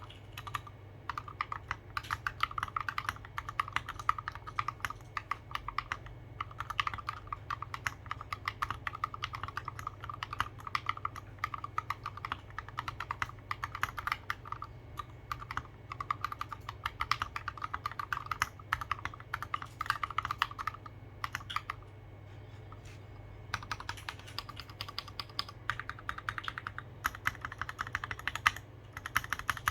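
Continuous fast typing on a custom mechanical keyboard with lubed Gateron Merlot tactile switches, lubed screw-in stabilizers and SA-profile keycaps, with no foam in the case. A steady stream of key clacks breaks off for about two seconds in the latter half, then resumes.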